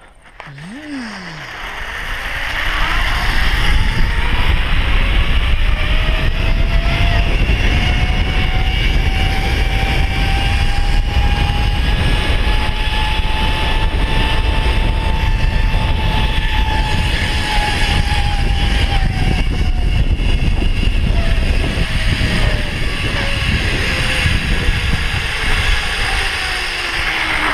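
Zip-line trolley pulleys running along the steel cable, with a whine that climbs in pitch as the rider picks up speed, peaks about halfway, then falls steadily as the trolley slows near the end. Under it runs a heavy wind rumble on the microphone.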